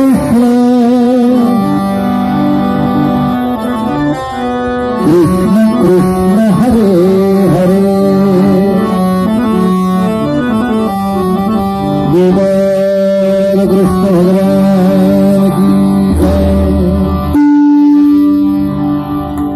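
Marathi kirtan music: a singing voice carrying a devotional melody over harmonium accompaniment, ending on one long held note.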